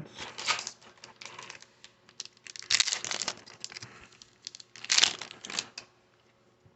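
Crinkly foil wrapper of a baseball card pack rustling in bursts as it is torn open and handled, loudest about three and five seconds in, then stopping near the end.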